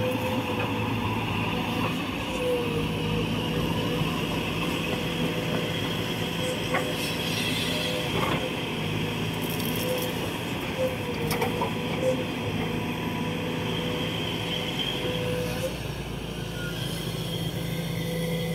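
JCB JS200SC excavator's diesel engine running under working load as the machine slews and digs, with a steady whine that wavers in pitch now and then and a few short knocks.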